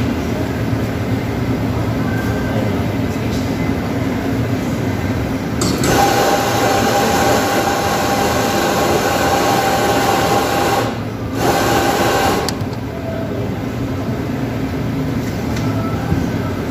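Electric espresso grinder running for about five seconds and grinding beans into a portafilter, with a steady whine. It stops briefly, then runs again for about a second before cutting off. A steady low hum underneath.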